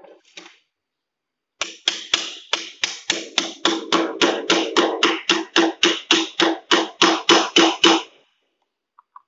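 Nail being hammered in: a steady run of about two dozen quick, even taps, about four a second, that stops after some six seconds.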